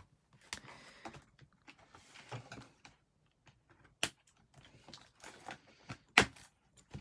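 Light rustling of a cardboard box insert and plastic, with sharp clicks about four seconds in and again just after six seconds, the second the loudest, as scissors snip the ties that hold a doll in its box.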